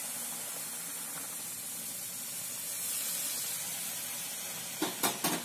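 Hot milk pouring into grated carrots frying in ghee in a metal pan, giving a steady hissing sizzle. Near the end come a few sharp knocks of a utensil against the pan.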